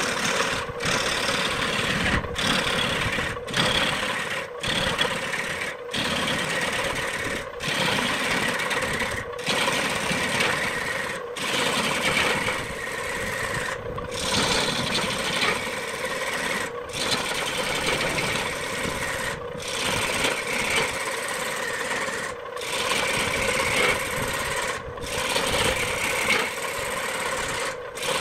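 Wood lathe running with a steady motor hum while a hand-held turning tool cuts into a spinning wooden blank, a rough scraping hiss as shavings are thrown off. The sound drops out for a split second every two to three seconds.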